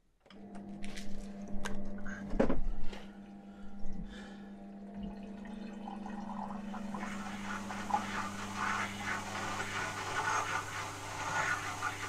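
Dishwasher starting a wash program: an electric motor hum comes on with a few clicks and knocks, then about six seconds in a loud rush of water starts as the machine fills and sprays.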